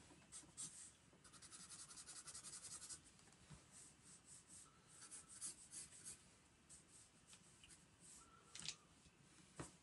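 Faint scratching of a marker pen on sketchbook paper: a quick, even run of hatching strokes a little over a second in, then slower separate strokes.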